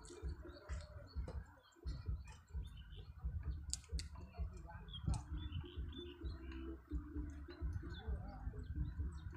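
Small birds chirping faintly, with a few sharp clicks, the two loudest about four seconds in, over a low rumble of handling or wind on the microphone.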